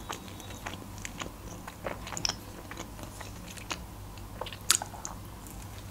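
Close-miked chewing of a burger: soft wet mouth clicks and smacks, with a sharper bite or crunch about four and a half seconds in.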